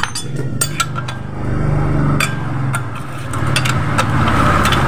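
Steel hand tools clinking and knocking against a scooter's CVT clutch assembly and the concrete floor, a dozen or so sharp clinks. Under them a small engine runs steadily, swelling in revs about a second and a half in and again near the end.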